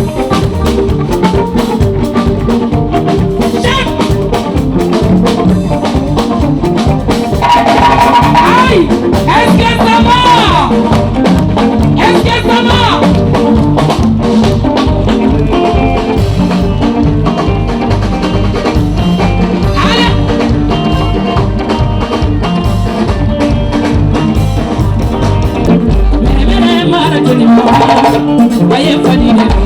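Upbeat dance music with a steady driving beat and a singing voice, in a Latin-flavoured style.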